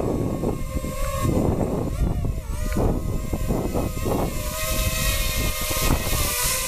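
DJI FPV quadcopter's propellers buzzing as it lifts off and climbs away, its whine wavering in pitch, over a gusty low rumble.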